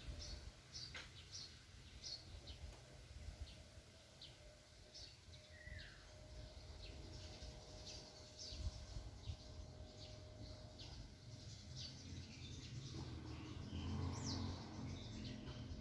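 Small birds at a tree giving faint, short, high chirps, several a second, over a low background rumble.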